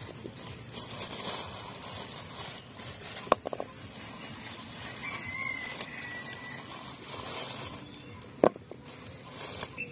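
Lumps of jaggery set down in an empty metal kadai: a few sharp, light knocks, a short cluster about three seconds in and a single one near the end, over a steady faint hiss.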